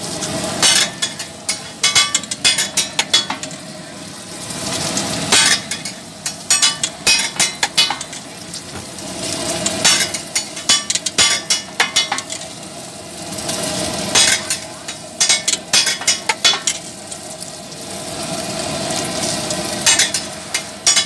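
Eggs and shami kebab patties sizzling on a large flat metal griddle, with bursts of rapid clattering as a metal spatula scrapes and taps across the griddle.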